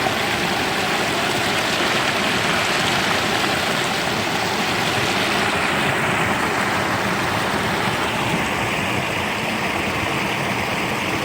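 River water rushing and flowing in a steady hiss, its brighter upper part softening a little about halfway through.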